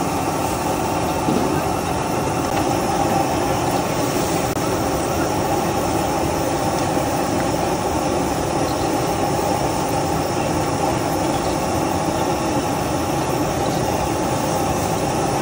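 Steady roar of a stir-fry kitchen's gas wok burner and exhaust fan, running without a break.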